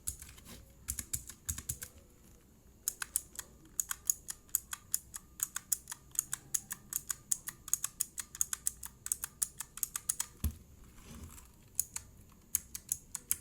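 Keys of a mechanical keyboard pressed repeatedly in quick runs of clacks with short pauses between, the keycaps damped by rubber domes from a membrane keyboard fitted underneath. One dull knock comes about ten seconds in.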